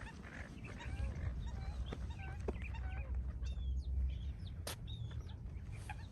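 Several birds calling with short chirps and whistled notes, one over another, over a low rumble; a sharp click about three-quarters of the way through.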